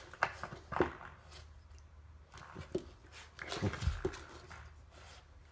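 An Australian Shepherd puppy mouthing and pawing a spring door stop: a few short knocks and clicks as the spring is bent and snaps back against the baseboard, the loudest about a second in and a cluster near four seconds, with the puppy's small play noises.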